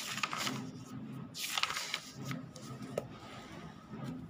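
Textbook pages being turned by hand: two bursts of paper rustling, then a short sharp tap about three seconds in.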